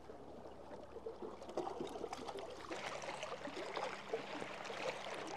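Small waves lapping and trickling among shoreline rocks, quiet and irregular.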